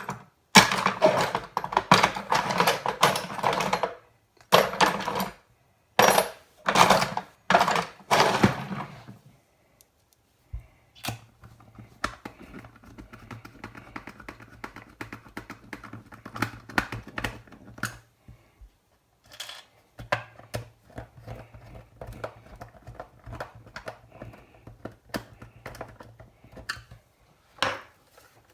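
Screws being driven into a small plastic project case in several loud bursts of one to three seconds, followed by quieter clicking and handling of the case.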